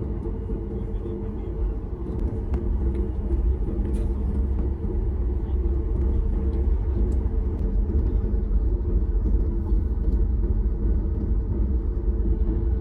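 Steady low rumble of a Boeing 737 MAX 8 heard from inside the economy cabin, getting a little louder about two seconds in, with a few faint clicks.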